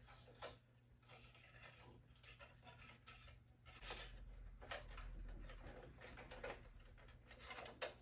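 Faint, scattered scrapes and soft clicks of a wire being worked through a small hole in a motorcycle frame by hand. There are two sharper ticks, one just past halfway and one near the end.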